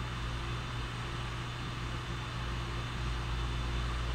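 Steady low hum with an even hiss underneath: background room tone, with no distinct events.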